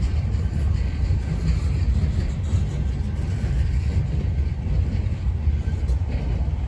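Freight train's boxcars and tank cars rolling past at close range: a steady low rumble of steel wheels on the rails.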